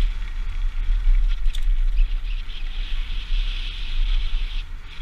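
Wind buffeting a helmet-mounted camera's microphone as a mountain bike rides fast down a dirt trail, a steady deep rumble with the hiss and small rattles of the tyres and bike over the ground.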